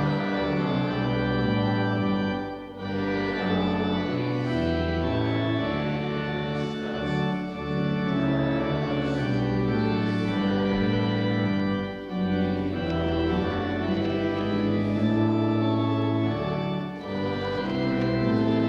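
Church organ playing a hymn in held chords that change from one to the next, with brief breaks between phrases about 3, 12 and 17 seconds in.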